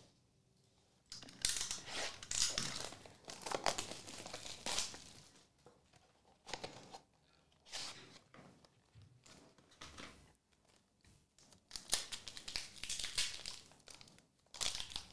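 Foil trading-card pack wrappers crinkling and tearing as they are handled and torn open. The rustling comes in uneven bursts: it starts about a second in, fades through the middle, and comes back loudest near the end.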